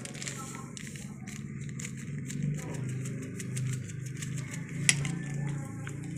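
Raw fish being mixed by hand and with a metal spoon in a bowl of wet kinilaw: soft wet squishing with scattered light clicks of the spoon against the bowl, and one sharp click about five seconds in. A low steady hum runs underneath.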